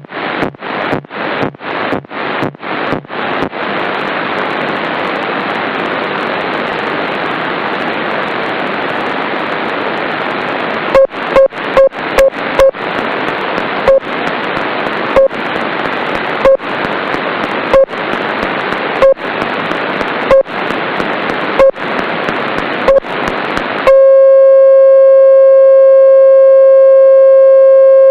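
Shortwave radio in upper-sideband mode tuned to 13.56 MHz, giving loud static that NFC polling from a Nexus phone and tablet chops into pulses. At first the static cuts out about three times a second. It then hisses unbroken, and from about 11 s in it is broken again by short beeps that slow to about one a second. About four seconds before the end a loud, steady buzzing tone takes over as the Nexus 7 tablet's NFC field works close to the tag.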